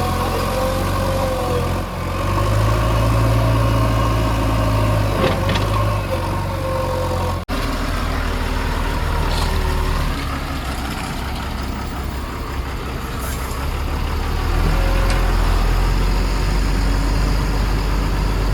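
Diesel engine of heavy machinery running steadily at a low rumble, with a brief break about seven and a half seconds in.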